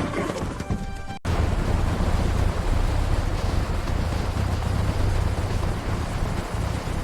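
Cartoon music that cuts off about a second in, followed by a loud, steady rumbling noise.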